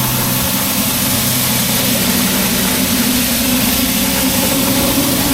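Petrol pressure washer engine running steadily, with the hiss of the spray over it.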